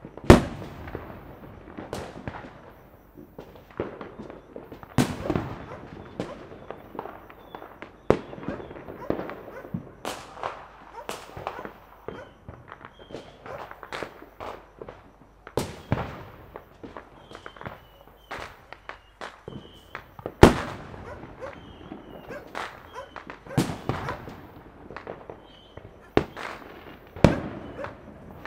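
Fireworks going off all around in an irregular barrage of sharp bangs, some near and loud, others distant and fainter, each with an echoing tail. The loudest bang comes right at the start and another about twenty seconds in.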